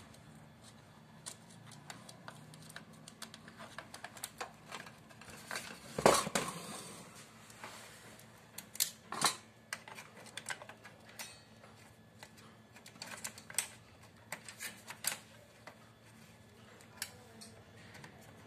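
Scattered clicks and light knocks of plastic and metal parts as an HP LaserJet printer's mechanism is handled and its new clutch refitted. The loudest knock comes about six seconds in.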